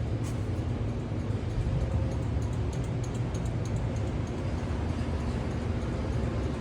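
Steady low rumble with faint ticks over it: a 1988 Honda Civic with its turn signal on, the flasher blinking fast (hyperflash) because the front signal lights are LED.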